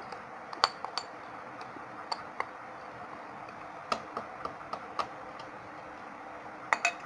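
A metal spoon clicking and scraping against a glass jar as mango pieces are stirred into spice masala for pickle: light, irregularly spaced clinks, about a dozen, with a closely spaced pair near the end.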